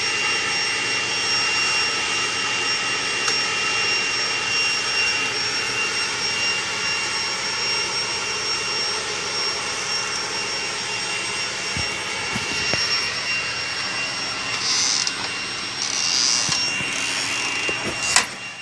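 Leaf blower running steadily, a constant rushing drone with a high whine over it. A sharp knock comes just before the end.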